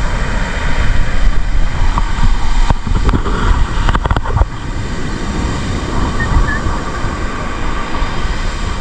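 Wind buffeting the microphone over the wash of beach surf, with a few short knocks from handling in the middle.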